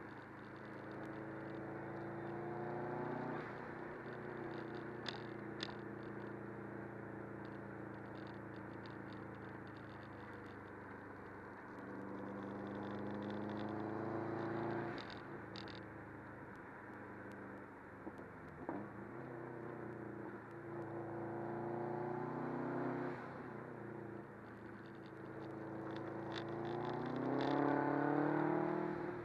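A Subaru WRX's turbocharged flat-four engine heard from inside the cabin over steady road noise. It rises in pitch several times as the car accelerates out of the bends, then drops back when the throttle is lifted. The strongest pull comes near the end, and a few faint clicks and rattles come from the interior.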